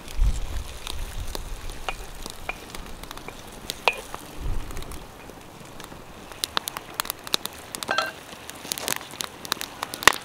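Crackling and popping from cooking over a wood fire: sharp pops, scattered at first and coming much thicker in the second half, with a low rumble near the start and again about four and a half seconds in.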